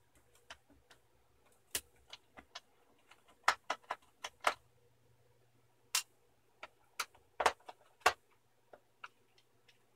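Sparse, irregular small clicks and taps as two screws are undone with a small screwdriver and fingers handle the plastic hard-disk cover of a Samsung R60 plus laptop, over a faint low hum.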